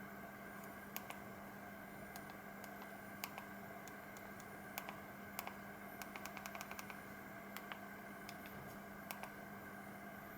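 Faint, irregular clicks of a Samsung SGH-C270's keypad buttons being pressed, with a quick run of presses about six to seven seconds in, over a low steady hum and hiss.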